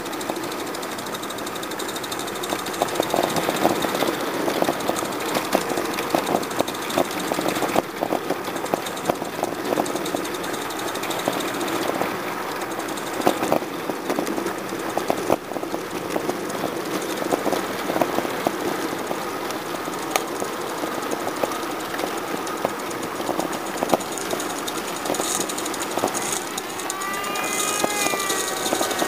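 Roundhouse Elsa live-steam garden railway locomotive running on its track: rapid chuffing exhaust beats over a steady hiss of steam.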